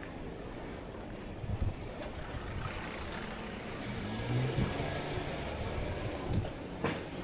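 City street ambience: a steady low rumble with a motor-like hum, as from a vehicle engine running nearby, and a few short knocks.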